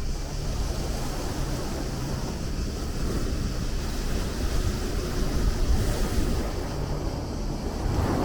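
Sea waves washing in a steady low rumble of surf, swelling a little past the middle.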